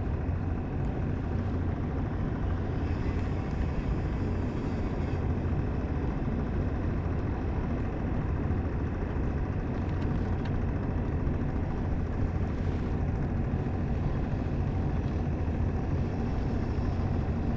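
Boat engine running steadily: a constant low rumble with a faint steady whine above it.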